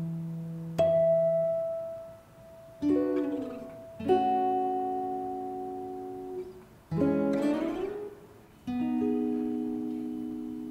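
Background music of slow, sparse plucked guitar chords, a new one every two seconds or so, each left to ring and fade, a couple of them slid up into.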